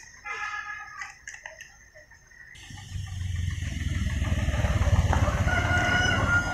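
A car passing close by, its engine and tyres swelling into a low rumble from about halfway through and peaking near the end. A rooster crows near the start.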